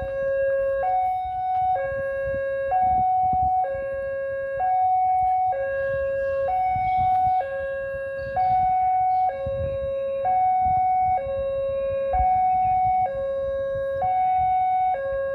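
Railway level-crossing warning alarm sounding a steady two-tone signal, switching between a low and a high tone about once a second. It is the warning given while the crossing barrier is down for a train.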